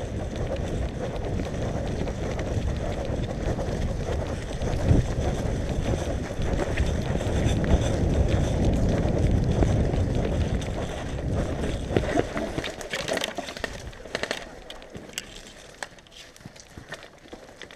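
Rough rumbling noise of movement on a body-worn camera's microphone, heaviest for the first twelve seconds, then easing into scattered clicks and knocks of footsteps and gear.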